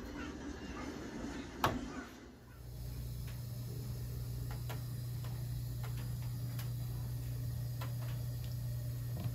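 A sharp click, then about a second later a steady low electrical hum from a light that has come on. Faint, irregular ticks sound over the hum.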